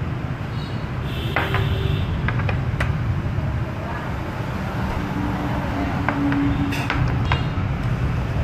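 A steady low rumble of background noise, with a few light clinks of a spoon and chopsticks against ceramic bowls on a glass table.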